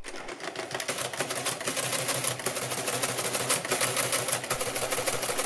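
Mercedes Euklid Model 21 electromechanical calculator running an automatic division: the electric motor drives the register and counter mechanism in a fast, even clatter of clicks, which stops abruptly at the end as the division cycle finishes.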